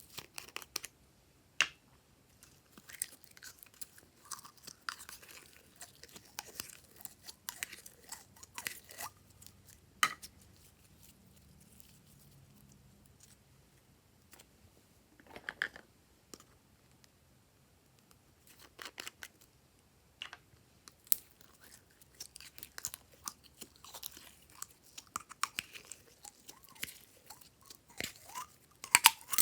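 Glossy slime being squished and worked by hand, giving irregular sticky clicks and crackles with short pauses and a louder run of clicks near the end.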